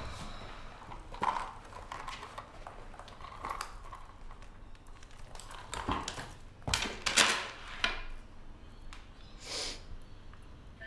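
Handling noises from a handbag and its metal chain strap: scattered light clicks, clinks and rustles as it is rummaged through and a phone is taken out, with a few louder rustles in the second half.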